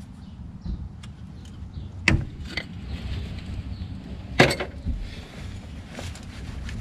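A few sharp metal clanks and knocks from an engine-mount bracket being handled and worked loose on a golf cart's frame, the loudest about two seconds in and again just over four seconds in, over a low steady rumble.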